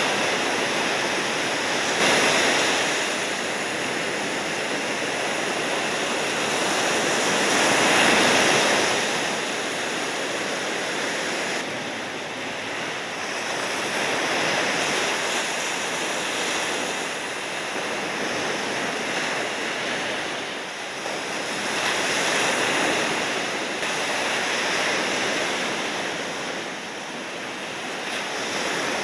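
Ocean surf: waves breaking and washing in a steady rush that swells and eases about every six to seven seconds.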